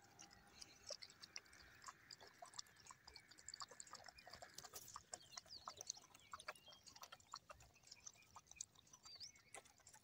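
Stray dogs lapping milk from plastic box lids: faint, quick, irregular wet clicks of their tongues.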